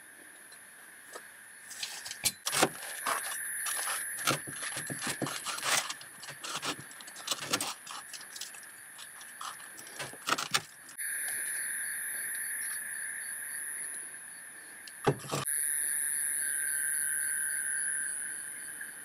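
Light clinks and clatters of objects being handled for several seconds over a steady high-pitched hum. Then a steadier sound follows, broken by a single sharp knock about fifteen seconds in.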